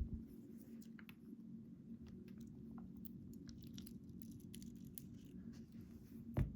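Light scattered clicks and scrapes of small metal lock parts and tools as a Ruko 600 pin-tumbler lock is being taken apart, with a dull knock near the end, over a faint steady low hum.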